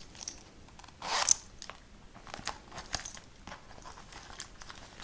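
Handling noise from small canvas pouches being turned over in the hands: scattered light clicks and rustling, with a louder rustle about a second in.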